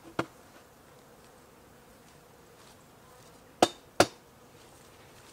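Honey bees buzzing faintly around an opened hive, with a sharp knock just after the start and two loud knocks close together about three and a half seconds in, from hive equipment being handled.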